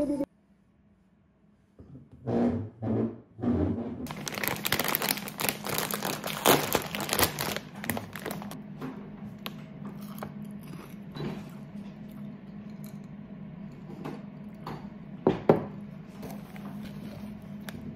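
Plastic chip bag being handled and opened, with a dense crinkling for about four seconds after a few soft knocks, then lighter rustling and scattered ticks, and two sharp clicks near the end.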